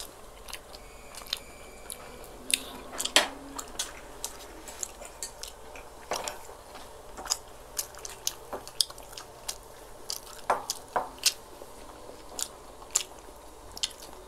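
Close-up eating sounds of two people: chewing and mouth clicks, mixed with metal spoons and forks tapping and scraping as they scoop rice and siomai off a wooden board. The clicks come irregularly, the loudest about three seconds in.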